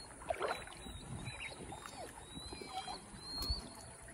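Water splashing and sloshing around people on an inflatable floater in a river, with a few faint distant shouts.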